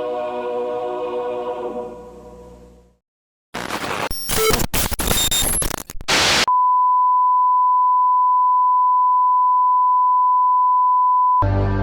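Choral national anthem fading out, then after a moment of silence about three seconds of harsh static with scattered electronic tones, followed by a steady single-pitch test tone lasting about five seconds: a broadcast station going off the air. New music cuts in near the end.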